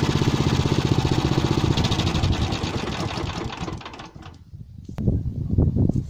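Motor Sich walk-behind tractor's engine running steadily, its sound dying away about four seconds in. Irregular low thumps follow near the end.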